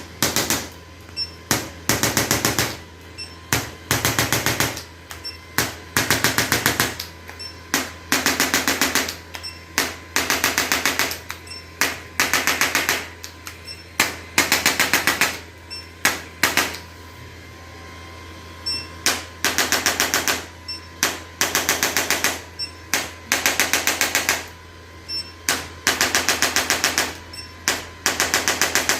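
Handheld electric percussion device firing short bursts of rapid mechanical taps, each burst about half a second to a second long, repeated over and over with brief pauses and one longer pause past the middle, over a steady low hum.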